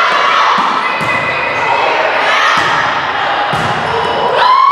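Indoor volleyball rally: several echoing thuds of the ball being played, under shouted calls from players and onlookers. Near the end a loud, high-pitched cheer rises.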